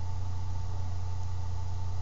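Steady low electrical hum with an even hiss and a faint high whine, unchanging throughout: the background noise of the recording setup, with nothing else happening.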